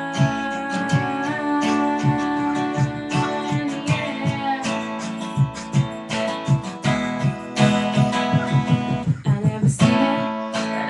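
Acoustic guitar strummed in a steady rhythm, an instrumental passage of the song with no singing.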